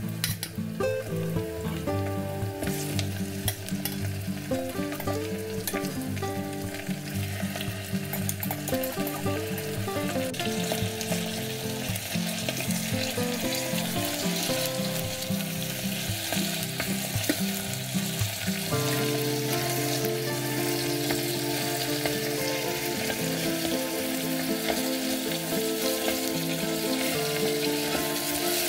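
Chicken pieces sizzling in hot oil with onions in an Instant Pot's stainless steel inner pot on the sauté setting, while a utensil stirs and turns them.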